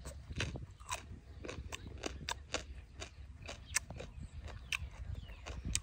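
Close-up chewing of a mouthful of papaya salad: irregular wet mouth clicks and soft crunches, several a second.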